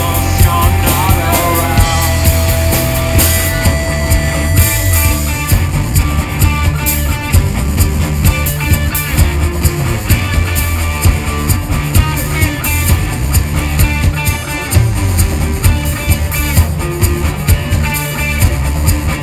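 Live rock band playing an instrumental passage on electric guitar, electric bass, drum kit and Moog synthesizer, with a steady drum beat and long held notes in the first few seconds.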